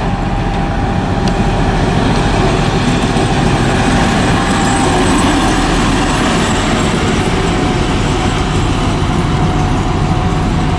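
M62 diesel locomotive with a two-stroke V12 diesel engine, running light with no train and passing close by. The engine runs loudly and steadily.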